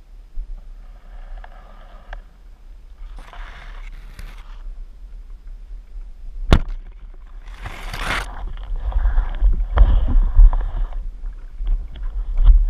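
Underwater sound picked up by a diver's camera: a steady low water rumble with several muffled rushing bursts, and a single sharp click about six and a half seconds in.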